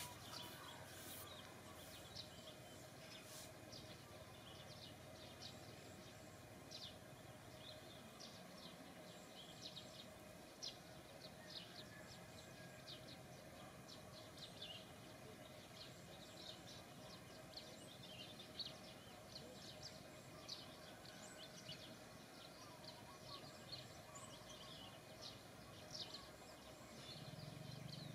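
Near silence: faint outdoor ambience with many tiny clicks or chirps scattered throughout.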